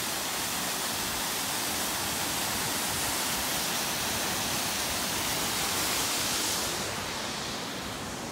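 Waterfall rushing with a steady hiss of falling water, easing off slightly about seven seconds in.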